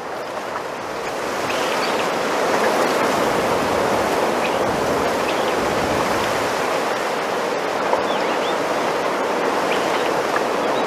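Wind rustling through bamboo leaves: a steady hiss that swells about two seconds in and then holds, with a few faint bird chirps.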